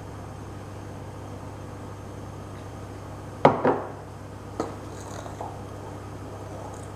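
A glass beer bottle knocks twice as it is set down on the kitchen benchtop about three and a half seconds in, followed by a lighter click and faint scraping of a fork stirring tempura batter in a bowl, over a steady low hum.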